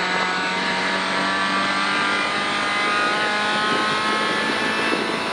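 Citroën C4 WRC rally car's turbocharged four-cylinder engine at full throttle, heard from inside the cockpit, its pitch climbing slowly as the car accelerates along a fast flat-out stretch.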